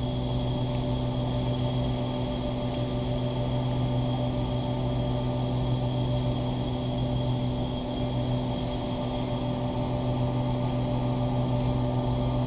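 EMD GP15-1 diesel locomotive's engine running at a steady, even speed, a constant drone with no change in pitch.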